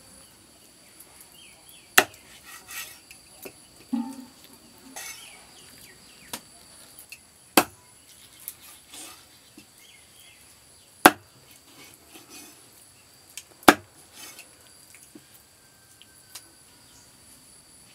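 Large cleaver-like kitchen knife chopping whole fish into pieces on a wooden log chopping block. About five sharp chops come a few seconds apart, with lighter knocks and scrapes between them.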